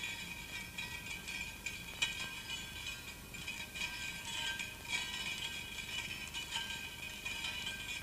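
Film soundtrack of light metallic rattling and jingling over several held high ringing tones, with sharper clinks about two, five and six and a half seconds in. It accompanies a coil of wire unwinding into a figure.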